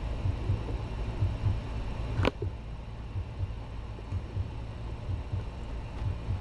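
A single sharp click about two seconds in, over a quiet low rumble.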